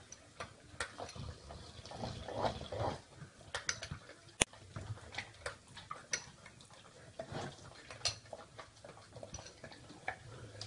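Spoon clinking and scraping against a ceramic bowl in a string of light taps, the sharpest about four seconds in, with a Rottweiler eating from the spoon between them.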